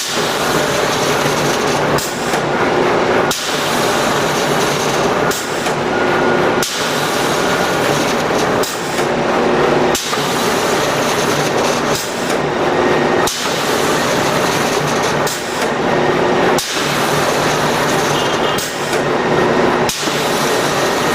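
CNC cardboard core cutter running through its cycle: continuous machine noise broken by a short dip about every one and a half to two seconds, in a repeating rhythm.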